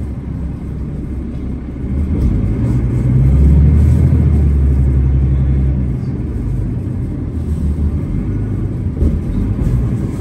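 Cummins ISL inline-six diesel engine of a 2005 New Flyer D40LF transit bus, heard from inside the bus while riding. It is a steady low rumble that grows louder about two seconds in, holds for a few seconds, then eases back.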